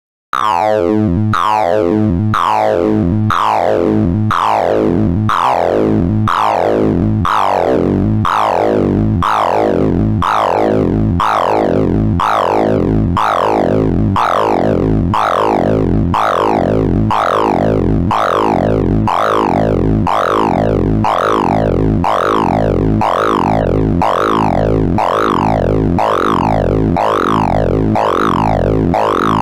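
Synthesized tones from the Sound of Sorting program as it runs a random sort. Each access to the array gives a tone pitched by the item's value, so the sound is a rapid warbling stream. It starts just after the opening as falling sweeps, then settles into repeated rise-and-fall sweeps, a little under two a second, over a bed of steadier lower tones.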